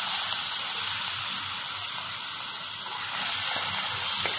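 Salt-and-turmeric-coated prawns sizzling in hot oil just after being tipped in, a loud, steady hiss of frying, with a light tap or two of the spatula near the end.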